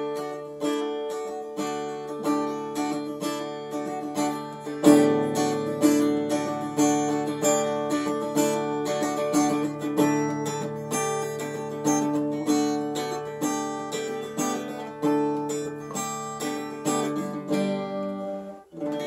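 Background music: acoustic guitar playing a steady run of plucked notes, with a final chord left ringing near the end.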